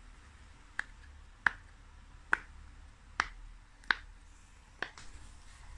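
A series of six sharp single clicks, spaced evenly a little under a second apart.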